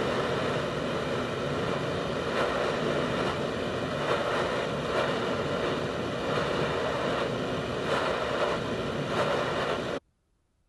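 Canister gas blowtorch burning with a steady rushing hiss, its flame playing on a steel screw; the sound cuts off suddenly near the end.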